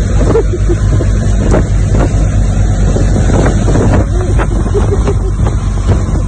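Motorboat under way at speed: the engine running steadily under a rush of wind on the microphone and water from the wake.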